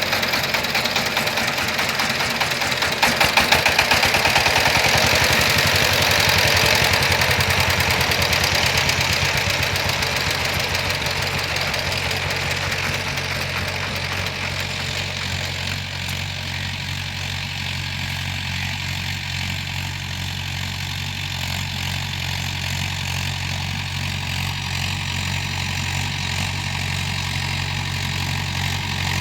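Diesel tractor engine running steadily while ploughing a field. It is loudest a few seconds in, then settles to a steady, somewhat quieter drone.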